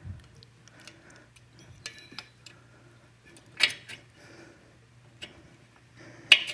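Light metallic clicks and taps of small engine parts and hand tools being handled as a pushrod is worked into a motorcycle cylinder head, with two sharper clinks about three and a half and six seconds in. A low steady hum sits underneath.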